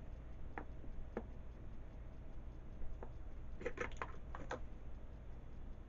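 Small kitchen utensils clicking and tapping: a few single light taps, then a quick run of several taps about halfway through.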